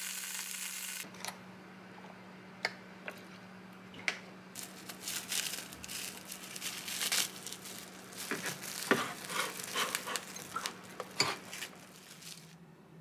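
Bacon sizzling in a frying pan for about the first second, then cut off. After that, scattered light clicks, knocks and rustles of plates and kitchenware being handled, busiest in the second half, over a faint steady hum.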